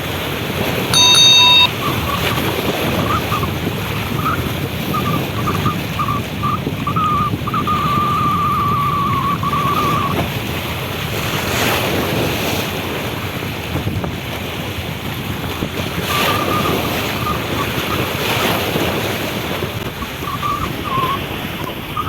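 Wind buffeting the microphone over the wash of sea waves. A short loud tone sounds about a second in, and a wavering high tone comes and goes through the first half and again near the end.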